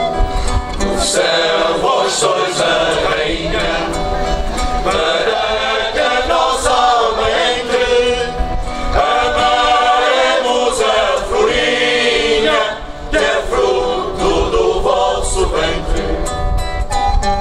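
A group choir of men and girls singing a religious serenade song together, with acoustic guitar accompaniment. A recorder melody hands over to the voices in the first second.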